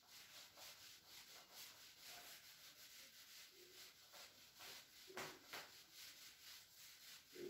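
A whiteboard being wiped clean with quick, faint rubbing strokes, two of them louder a little after five seconds in.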